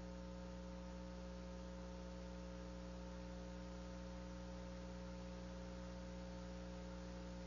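Steady electrical hum over a faint hiss on a broadcast audio line. Several low tones are held without change.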